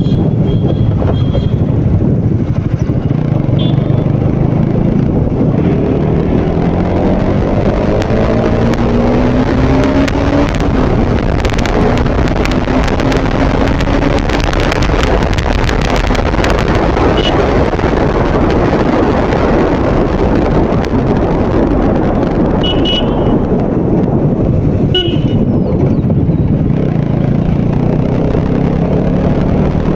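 Motorcycle engine running under way with wind rushing over the microphone, its pitch climbing as the bike accelerates about a third of the way in and again near the end. Short horn beeps sound near the start and twice about three-quarters through.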